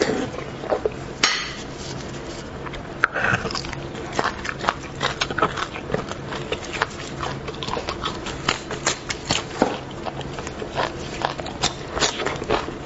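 Close-miked mouth sounds of a person eating beef bone marrow: chewing, biting and lip smacking, heard as many short, sharp clicks at an irregular pace.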